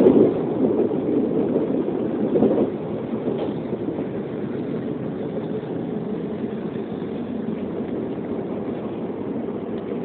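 Steady running noise of a train heard from inside the carriage, an even rumble that drops slightly about two and a half seconds in and then holds level.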